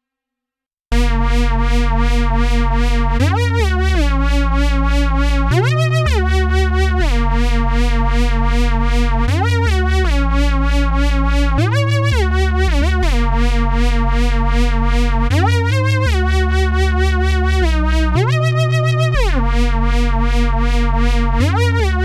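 Sequential Pro 3 synthesizer playing one of its patches dry, without external effects. It starts abruptly about a second in and holds low bass notes that step to new pitches every couple of seconds, while higher tones repeatedly swoop up in pitch and back down.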